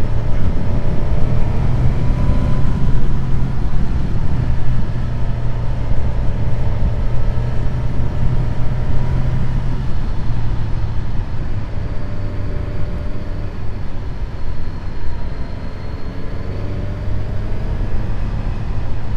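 Suzuki GSX-S1000GT motorcycle's inline-four engine running at a steady road speed under heavy wind noise. The engine note drops about ten seconds in and climbs again near the end as the bike speeds back up.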